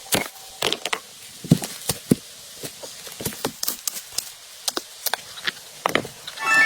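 A series of irregular sharp knocks and snaps, several a second and uneven in strength, over a steady hiss.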